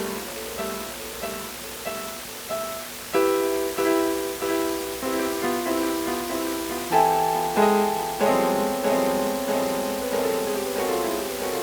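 Yamaha PSS-A50 portable keyboard playing layered phrases built up with a looper pedal. A fuller layer of held notes comes in about three seconds in, and a higher sustained part joins about seven seconds in.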